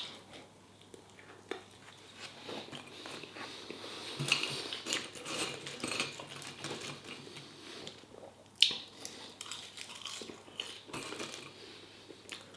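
A person chewing and eating a chilli dog and fries close to the microphone, with irregular small mouth clicks. There is one sharp knock a little past two-thirds of the way through.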